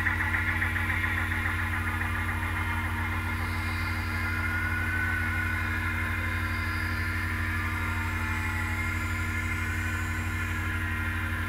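Mountain bike riding along a dirt singletrack, heard through the rider's own camera: a steady low buzzing rumble with a fine rapid pulse, plus a higher hiss that eases slightly after the first second or so.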